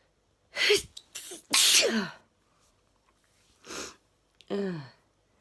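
A woman sneezing in a fit, several sharp sneezes in a row with short pauses between, the loudest about a second and a half in.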